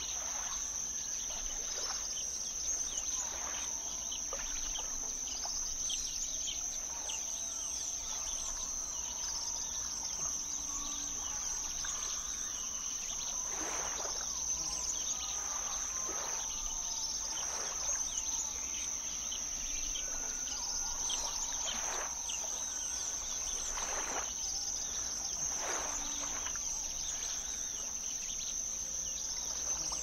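Forest ambience of a continuous high-pitched chorus of crickets, with bird calls and chirps scattered over it, several brief calls through the middle.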